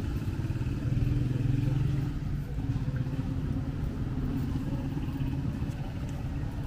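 A vehicle engine running steadily close by as a low, even hum, a little louder in the first couple of seconds, over street background noise.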